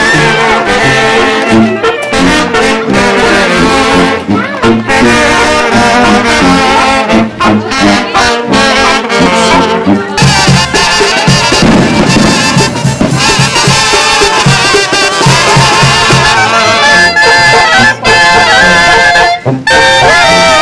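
Brass band music: trumpets and trombones playing a tune over a low bass line.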